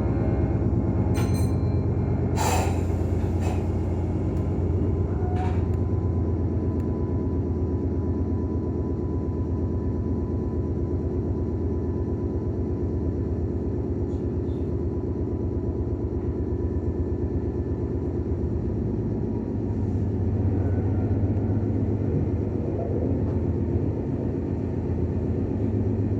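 Meitetsu 6000 series electric train heard from inside the car: a steady low running rumble with a rapid, even pulsing beneath it, the car's air compressor at work. A short, sharp noise about two and a half seconds in, and a faint steady whine through the first two-thirds.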